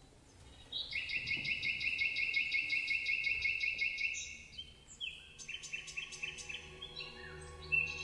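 Nightingale-like song: a fast, even run of repeated high chirps lasting about three seconds, then shorter chirping phrases. Low sustained orchestral notes enter underneath about five seconds in.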